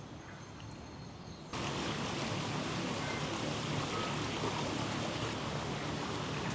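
Quiet bush with a few faint bird calls, then about a second and a half in an abrupt cut to the steady rush of a stream, with an occasional faint bird chirp over it.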